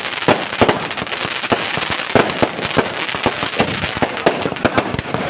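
Many firecrackers going off in rapid, irregular succession: sharp bangs overlapping one another over a continuous crackling.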